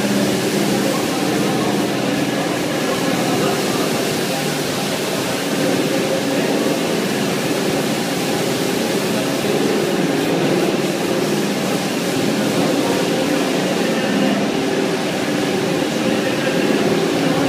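BRS 320 automatic carpet washing machine running, its four horizontal brushes scrubbing wet, foamy carpets: a steady mechanical drone mixed with wet scrubbing noise.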